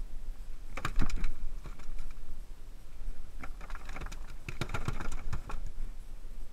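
Quick clicks and knocks of a landing net, with a freshly netted fluke in it, against a small boat's deck: a short cluster about a second in and a longer run from about three and a half to five and a half seconds in.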